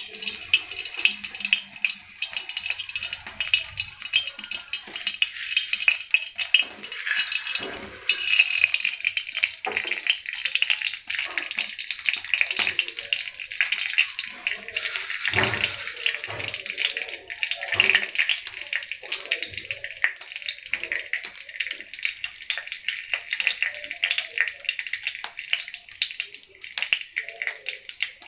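Hot oil sizzling in a stainless steel kadai, with mustard seeds crackling and popping in it: a steady hiss dotted with many sharp pops.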